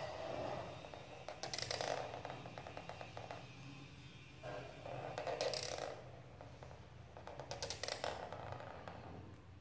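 Black felt-tip marker scratching and squeaking across paper as it draws curved strokes, in several separate strokes with short pauses between them.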